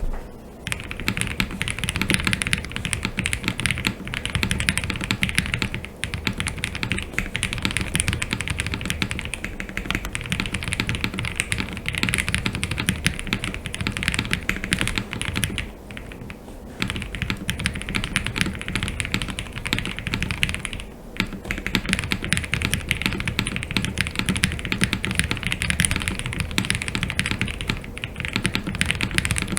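Fast, continuous typing on a mechanical keyboard: an ai03 Vega with a polycarbonate plate and plate and case foam, fitted with Wuque Studio Aurora Clear linear switches lubed with Krytox 205g0 and GMK keycaps. It makes a dense stream of muted, deep keystroke clacks, with short pauses about 6, 16 and 21 seconds in.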